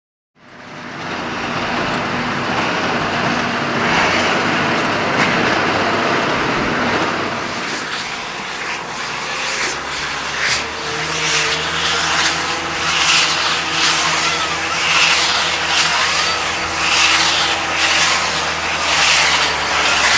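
Farm tractor running under load with a big square baler working: a steady engine drone and machine noise starting abruptly just after the beginning. From about halfway through there is a regular beat about once a second.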